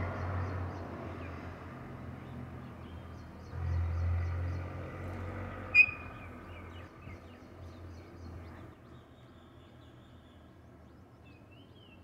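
Alexandrine parakeet giving one short, sharp call about six seconds in, with a few faint small chirps near the end, over a steady low background hum that fades away.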